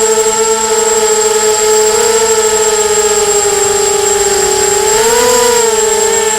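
FPV quadcopter's brushless motors whining in flight, a steady pitched hum that sags about four seconds in and rises again a second later as the throttle changes, with a thin steady high tone above it.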